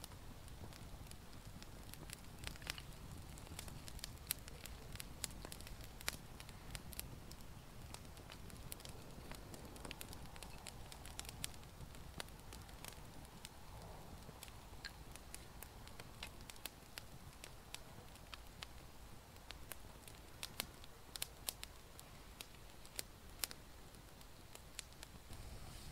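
Campfire crackling, with scattered sharp pops at irregular intervals over a low, steady background noise.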